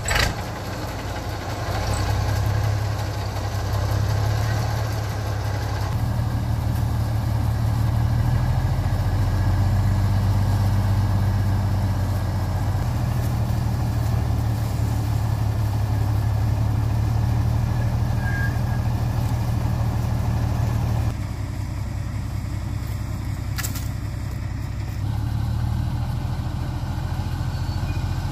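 A vehicle engine catching right at the start and then running steadily with a deep, even note. Its sound steps up about six seconds in, drops about 21 seconds in and rises again a few seconds later as the revs or load change.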